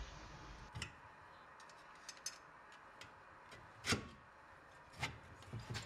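A few faint metallic clicks and light taps, spaced irregularly, the loudest about four seconds in: the cylinder of a Voskhod two-stroke motorcycle engine being eased down over the piston while a screwdriver presses the piston rings into their grooves.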